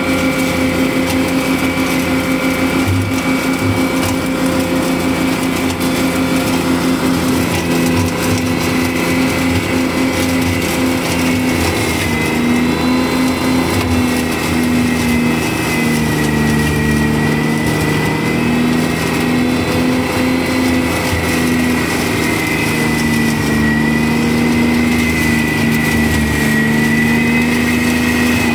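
Steiner 430 tractor's engine running steadily at working speed, driving a Ventrac flail mower through tall weeds and brush. The pitch dips slightly a few times.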